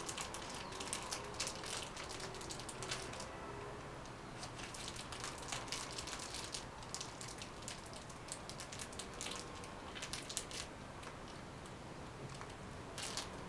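Faint, irregular crunching clicks of a person chewing a snack, coming in bunches every few seconds.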